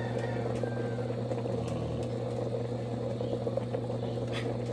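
Stainless electric kettle boiling instant noodles with its lid held open: a steady rumbling boil over a constant low hum. With the lid open the kettle does not switch itself off at the boil, so it keeps boiling.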